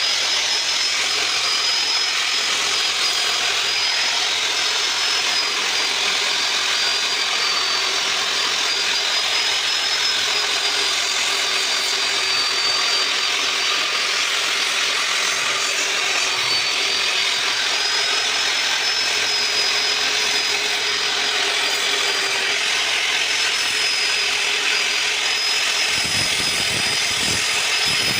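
Handheld electric power tool running a sanding disc against wood, a steady, loud grinding hiss with a high motor whine that wavers slightly in pitch as the pressure changes.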